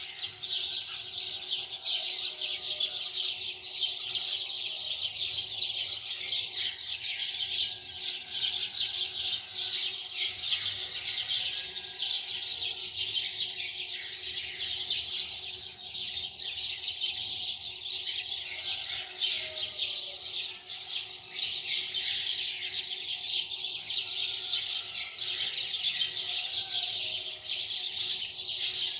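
Many small birds chirping at once in a dense, continuous chorus of quick, high twitters.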